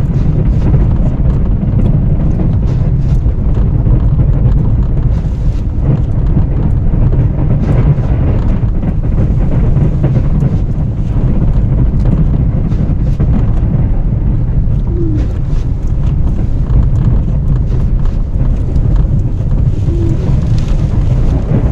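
Plow truck driving and pushing snow with its blade: a loud, steady low rumble with wind noise.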